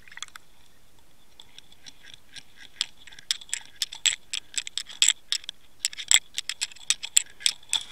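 Irregular sharp clicks and ticks over a faint steady high whine, heard underwater through an action camera's housing as it sinks through the river. The clicks are sparse at first and come several a second from about three seconds in.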